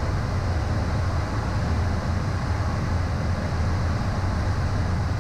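Steady cockpit noise of a Beechcraft Premier I jet descending on autopilot: an even rush of airflow over a low drone, with no change throughout.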